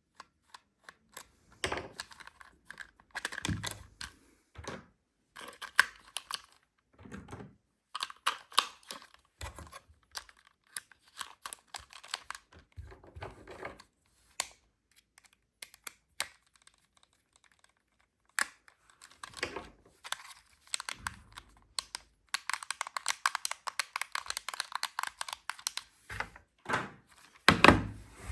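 Hands unboxing a toy remote-control car: irregular clicks, tearing and crinkling of cardboard and plastic packaging, with a longer stretch of crinkling about three-quarters through and a loud knock near the end.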